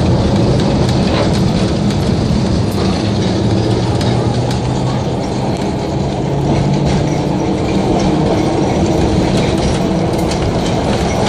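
Streetcar running along the track: a steady low motor and gear hum over the rumble of steel wheels on the rails, with scattered clicks and rattles.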